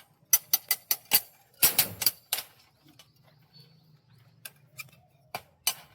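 Metal pieces clinking and tapping against each other in sharp, dry clicks. There is a quick run of them in the first two and a half seconds, then a few scattered ones.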